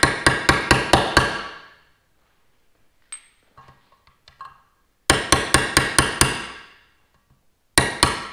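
Hammer tapping on a 32 mm socket held over a spark plug tube seal, driving the seal down into its recess in a Toyota 5VZ-FE valve cover. The taps come in three quick runs of sharp, ringing metal strikes, about seven in each of the first two runs and a few in the last, with pauses of a few seconds between them.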